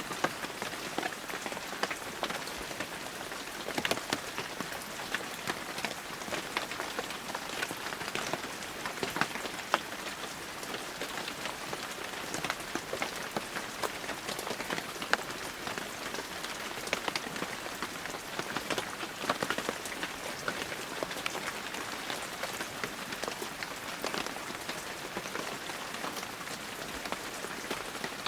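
Steady heavy rain falling, with a dense patter of individual drops striking close surfaces.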